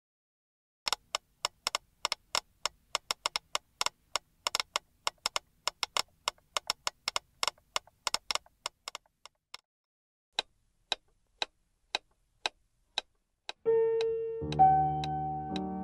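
Several metronomes ticking out of step, a dense clatter of sharp clicks that thins to a single tick about twice a second. Near the end, keyboard music with held notes and chords comes in over the ticking and becomes the loudest sound.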